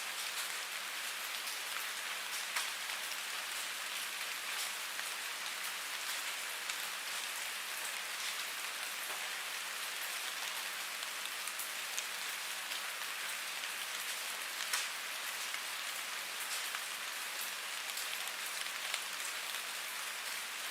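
Steady rain falling on a surface, an even hiss dotted with individual drop ticks, a few of them louder.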